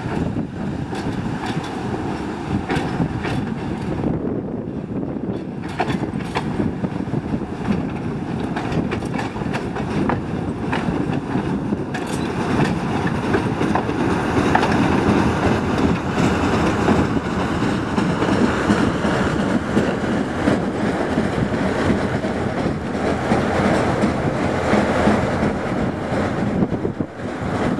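TU2 narrow-gauge diesel locomotive running with a train of flat wagons, its engine sounding under the steady clatter of wheels over the rail joints. It grows louder about halfway through as the train comes close.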